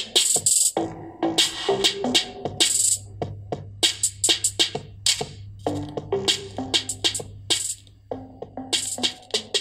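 Electronic music with a steady beat, played through a small speaker driven by a homemade TEA2025 amplifier during its test.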